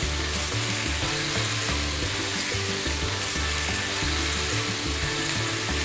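Pieces of meat searing in smoking-hot oil in a frying pan, sizzling steadily as they are turned over with a silicone spatula. This is the high-heat sear that browns the outside so the meat keeps its juices.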